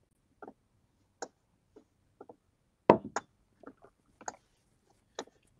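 Sparse, irregular clicks and light taps, about a dozen in all, the loudest nearly three seconds in.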